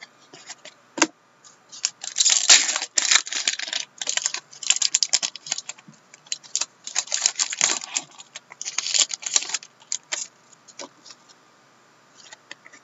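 Upper Deck Trilogy hockey trading cards flipped and slid against one another in the hands: quick runs of dry clicks and rustles, busiest through the middle and thinning out near the end.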